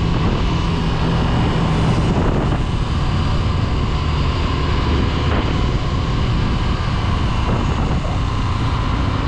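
Small-displacement motorcycle engine running steadily under way, heard from the rider's own bike.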